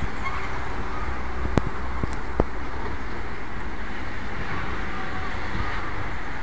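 Steady low rumble of distant vehicles, with three sharp clicks between about one and a half and two and a half seconds in.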